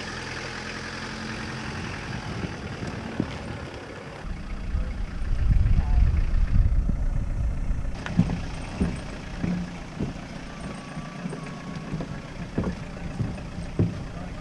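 An estate car's engine idling steadily, fading after about two seconds. A loud low rumble follows for a few seconds, then scattered sharp knocks and clatter.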